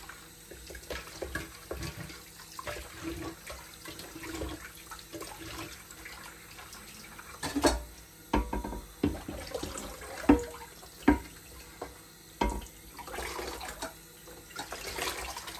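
Kitchen tap running, water splashing onto a ridged grill plate and into a washing-up bowl as the plate is rinsed. Several sharp knocks from handling the plate come in the second half.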